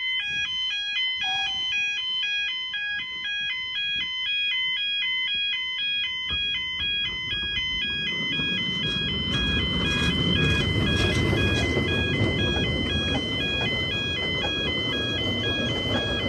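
Level-crossing warning alarm sounding its rapid two-tone yodel. From about six seconds in, the growing rumble and rush of a narrow-gauge steam train crossing the road rises under it, loudest around ten to twelve seconds as the locomotive and coaches pass close by.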